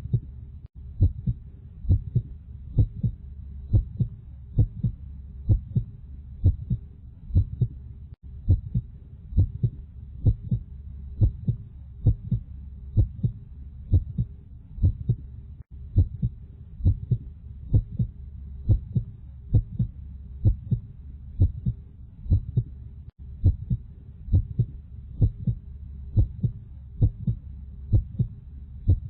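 Heartbeat: a steady lub-dub, each beat a double thump, about one beat a second over a steady low hum.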